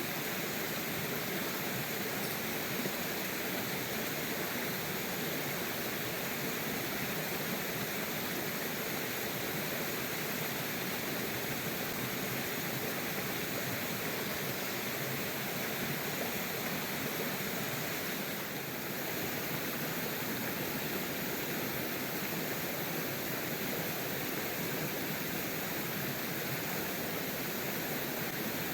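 Steady, unbroken rush of water, with a slight brief dip in level about two-thirds of the way through.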